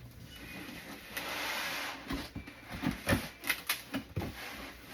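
Cardboard box and plastic packaging being handled: a rustling slide about a second in, then a run of light taps and knocks.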